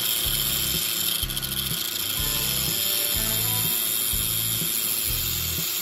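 DeWalt angle grinder running with a screw tip, spun by a cordless drill, ground against its abrasive disc, throwing sparks, under background music with a steady beat.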